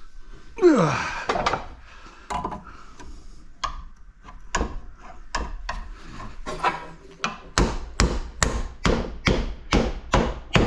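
A scrap faucet being taken apart with hand tools. About half a second in, metal scrapes on metal in a short falling screech, followed by scattered knocks and scrapes. For the last three seconds a hammer strikes it steadily, about two to three blows a second.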